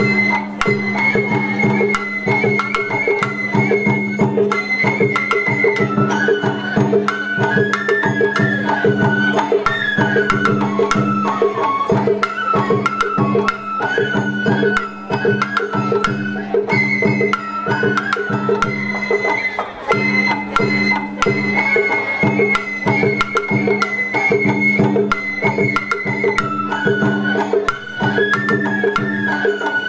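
Sawara-bayashi festival music played from the float: a high bamboo flute melody over dense taiko drumming and percussion, the same flute phrase coming round twice. A steady low hum runs underneath.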